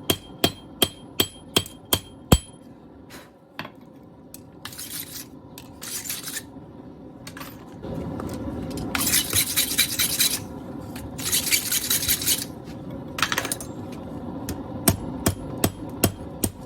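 Hammer blows on a machete blank being forged, about three a second, stop after a couple of seconds. Several bursts of rapid scraping strokes on the steel follow. The hammering starts again near the end.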